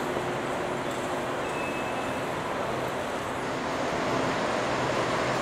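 Steady hum and hiss of a railway station concourse, with a short faint high tone about a second and a half in.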